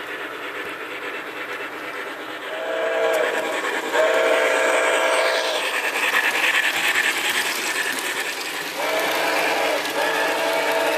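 Sound-equipped MTH HO-scale steam locomotive sounding its recorded steam whistle: a short blast then a long one about three seconds in, and two more long blasts near the end, over steady running noise from the train.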